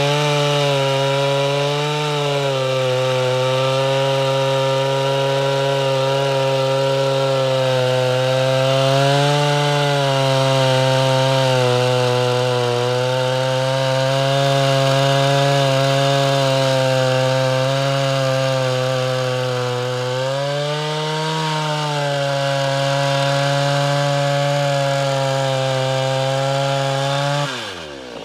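Ported Homelite Super XL Auto two-stroke chainsaw running flat out through a log round, its pitch sagging slightly under load now and then. Near the end the engine note falls away as the cut finishes.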